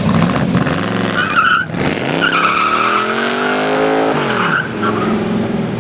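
1966 Ford 7-Litre's R-code dual-quad 427 V8 revving in a burnout, its pitch climbing from about two seconds in. The rear tires squeal on and off as they spin.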